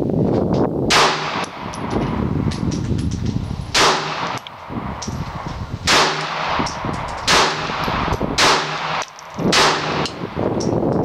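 Pistol fire: six loud single shots at irregular intervals of about one to two seconds, each with a short echo, with fainter shots in between.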